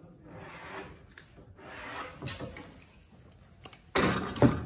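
Small wooden cart parts being handled and rubbed by hand, with a light click, then a sudden louder clatter of wood knocking against the workbench about four seconds in.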